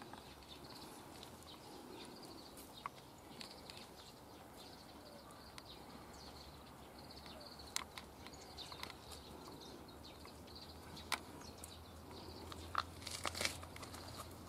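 Faint crunching footsteps on dry fallen leaves and grass: a few scattered steps, then a closer cluster near the end, over a quiet outdoor background with faint high chirping.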